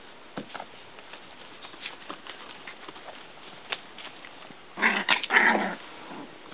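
Three-week-old Icelandic sheepdog puppies at play: scattered light clicks and scuffles, then about five seconds in a loud burst of puppy growls and yaps lasting about a second.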